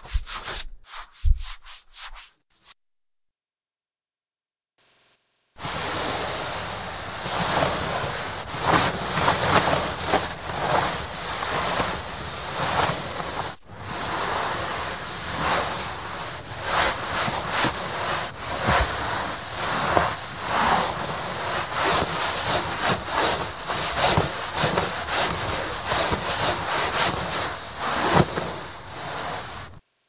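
A wet cloth wiped back and forth across a wooden tabletop: a continuous rubbing made of repeated strokes. It is preceded by a few short knocks and a thump in the first couple of seconds and a pause of about three seconds.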